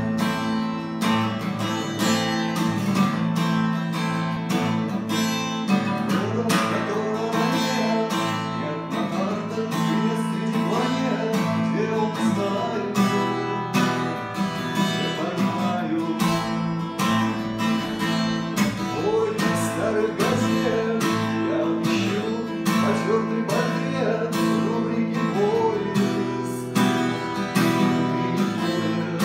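Acoustic guitar strummed in a steady rhythm of chords, starting suddenly.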